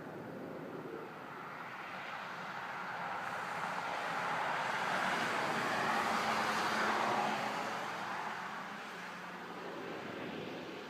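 A vehicle passing: a rushing noise swells to its loudest about six or seven seconds in, then fades away.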